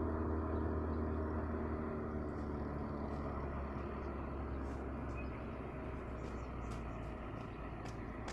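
A low, steady vehicle rumble that fades slowly. The last of a ringing metallic tone dies away in the first moment.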